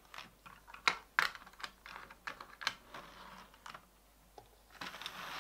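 Sharp plastic clicks and taps as OO gauge model coaches are set on the track and coupled up by hand. Near the end a steady whirring hiss starts as the Hornby 0-4-0 loco's motor and wheels get the train moving, with a little wheel spin at the start.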